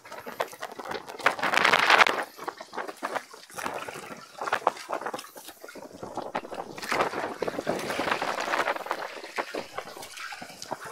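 Seawater splashing and dripping beside a small fishing boat in short, irregular bursts, louder about a second in and again about seven seconds in.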